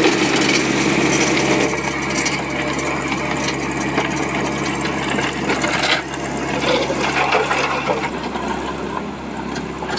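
Ajax Fiori self-loading concrete mixer's diesel engine running under load while its loader bucket scoops coarse broken stone and lifts it toward the drum, with stones clattering and rattling against the steel bucket. The engine's low hum drops away about eight seconds in.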